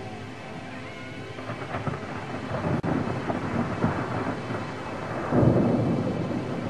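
Thunder rumbling and crackling over a steady hiss of rain, building to its loudest, deepest clap about five and a half seconds in.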